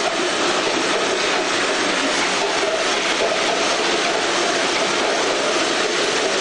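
SSO-2000 roll-fed OPP labelling machine running, with a steady, even mechanical noise as jars move through on the conveyor.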